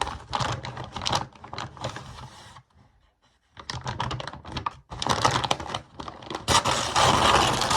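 Webcam packaging being handled and opened: rapid clicks and crackling rustles, a short pause about three seconds in, then louder, denser rustling near the end.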